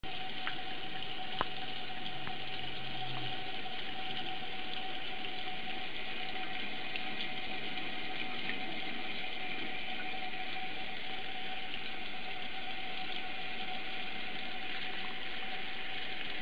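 Tap water running steadily into a sink, with a faint steady whine throughout.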